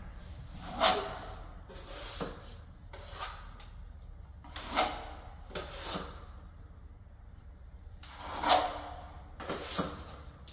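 Steel plastering trowel scraping wet filler in about eight short separate strokes, a second or two apart, as it is pressed into an internal wall-ceiling corner and scraped clean against the hawk.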